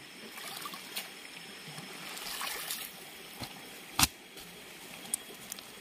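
Shallow river water splashing and dripping as a cast net is gathered up and carried out of the water, with footsteps on gravel. A single sharp click about four seconds in is the loudest sound.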